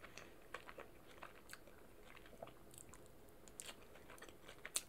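Faint chewing of food close to the microphone, with scattered soft, irregular mouth clicks.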